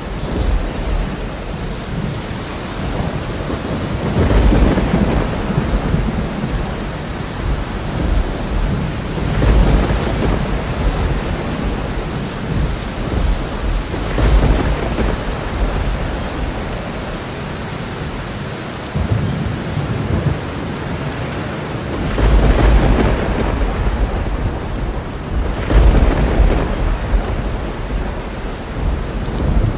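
Thunderstorm: steady rain with rolls of thunder that swell up and die away about every four to five seconds.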